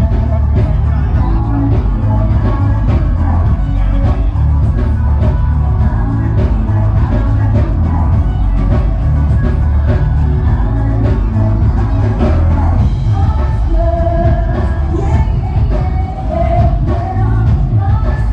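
Loud pop music with a singing voice and heavy bass.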